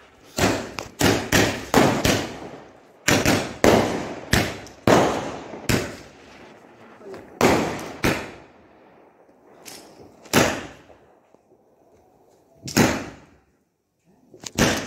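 Diwali fireworks going off: a quick run of sharp bangs, a few a second, for about the first five seconds, then single bangs every two seconds or so, each trailing a short echo.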